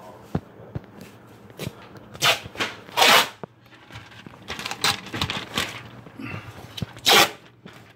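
Rustling and scraping handling noises in short bursts, four or so, the loudest about three seconds in and again near the end.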